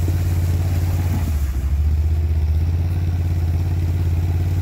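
ATV engine running steadily at low speed with a steady low note and a brief dip about one and a half seconds in, as it tows a wooden sheep corral by rope.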